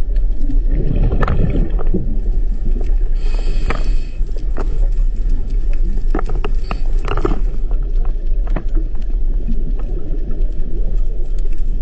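Underwater recording of an earthquake: a loud, continuous deep rumble with many sharp cracks and knocks scattered through it, and a brief ringing tone about three seconds in.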